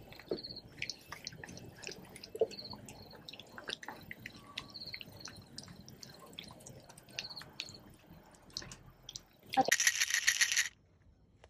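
Small dogs eating from bowls: scattered small clicks and light high clinks. Near the end, about a second of loud rattling as two bottles of pet supplement tablets are shaken.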